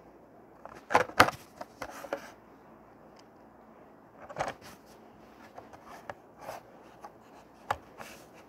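Plastic blister pack and card backing of a die-cast toy car being handled in the hands: scattered crackles and clicks of the plastic, loudest in a quick cluster about a second in.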